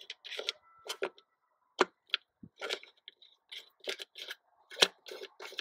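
Hands fitting the plastic air-filter housing back onto a Fiat Panda's carburettor: a run of irregular light clicks and knocks of plastic and metal, about two or three a second.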